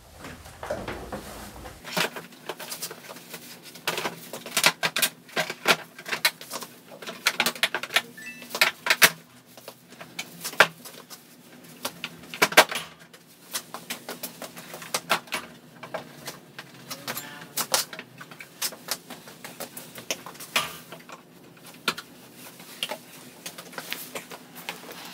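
Plastic cowl panels of a Daelim Citi Best scooter being handled and fitted back onto the frame: irregular clicks, knocks and rattles of plastic against the bike.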